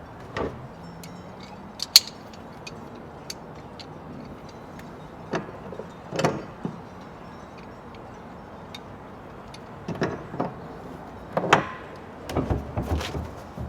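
Scattered clicks and knocks from a threaded fitting being screwed tight into a plastic barrel, the tool and hands knocking against the fitting and drum, with a sharp click about two seconds in and a quick run of knocks near the end.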